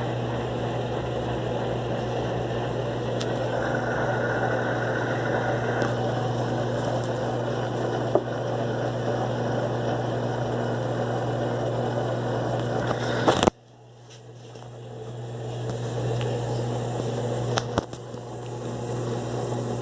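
Electrolux LTE12 top-loading washing machine spinning: a steady motor hum with a rattling, rushing noise. About two-thirds through the sound cuts off abruptly, then comes back and grows louder over a couple of seconds, with a single click near the end.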